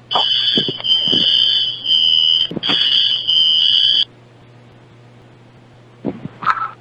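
Loud, high-pitched electronic alarm tone sounding in long, broken blasts, cutting off about four seconds in. A few short high chirps follow near the end.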